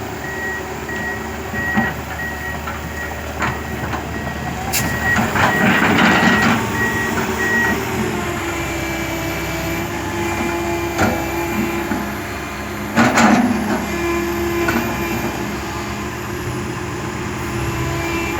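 A heavy diesel machine's reverse warning beeper sounds in steady, evenly spaced beeps over engine running, then stops about eight seconds in. The engine carries on steadily, with two louder rushing bursts around six and thirteen seconds in.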